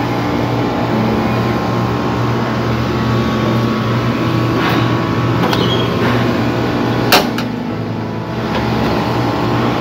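A steady low machine hum, with a few sharp metallic clicks from hand tools working on the air conditioner's outdoor unit. The loudest click comes about seven seconds in.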